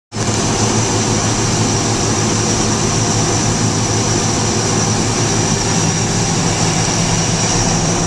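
Cat combine harvesting wheat: the engine and threshing machinery running steadily under load, with a constant high-pitched whine over the low engine drone.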